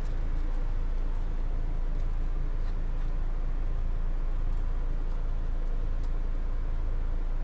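A steady low motor rumble, with a few faint clicks.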